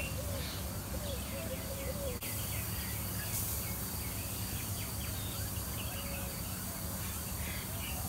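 Several birds chirping and calling, with quick high chirps and lower wavering calls throughout, over a steady low rumble of outdoor background noise.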